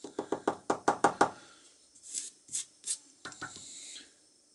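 A small metal lighter part being worked over with a thin steel pick, hand tool on metal: a quick run of about nine light taps in the first second and a half, then three short scrapes and a couple of clicks.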